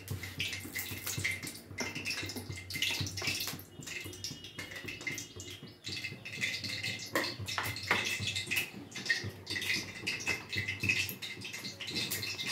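Mustard oil being poured in a thin stream from a bottle into a metal kadai, with many irregular small clicks and crackles.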